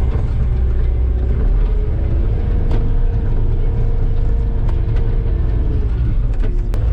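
Cat skid steer's diesel engine running steadily with a deep rumble, heard from inside the cab. A whine steps up in pitch about two seconds in, holds, and drops back near the end.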